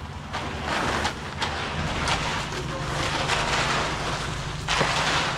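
An engine running steadily, with intermittent scraping, knocks and a louder noisy rush near the end.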